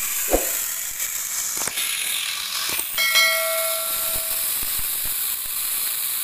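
Angle grinder fitted with a Hoyoma chainsaw attachment running steadily, its chain cutting through a mango limb with a high hissing whine. There is a thump just after the start, and a click and a short ringing chime about three seconds in.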